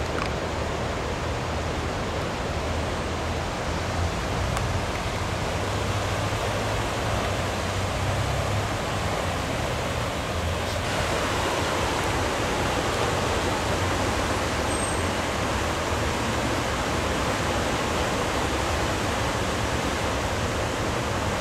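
Floodwater of the swollen Delaware River rushing steadily. A low rumble fades out about halfway through, and from then on the rushing is brighter and hissier.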